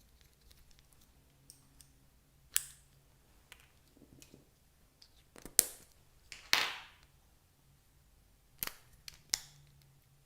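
Slime being handled, making several sharp clicks and pops a second or more apart, one of them trailing off in a short crackle.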